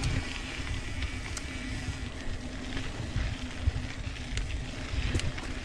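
Santa Cruz Tallboy mountain bike rolling down a dirt trail, with a steady low hum, scattered clicks and rattles from the bike, and wind buffeting the microphone.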